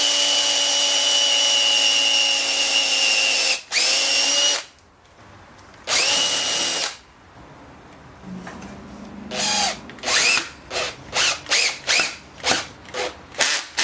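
Power drill running: a long steady run, a brief stop and a short restart, another short run, then a string of quick trigger pulses, each spinning up from rest, as when a screw is driven home while fastening wooden parts.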